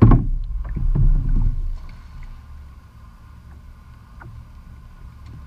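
Choppy water slapping and splashing against the hull of a plastic kayak, with heavy low thumps in the first two seconds, then a steady low wash of water.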